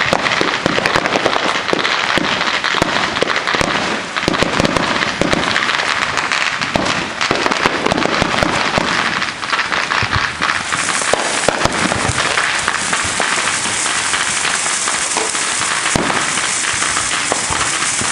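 Firecrackers and fireworks going off thick and fast: continuous crackling with many sharp pops. From about ten seconds in, a steady hissing spray is added, from a ground fountain firework shooting sparks.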